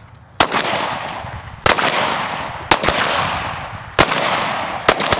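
Five gunshots fired about a second apart, each sharp crack followed by a long echo that rolls away.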